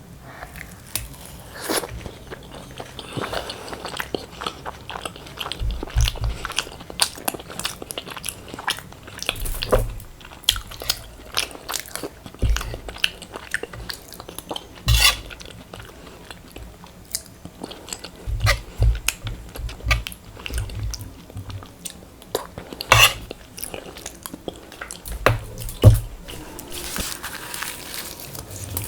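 Close-up chewing and crunching of luchi with crispy fried potato (aloo bhaja): irregular crunches and wet mouth clicks, a few louder than the rest.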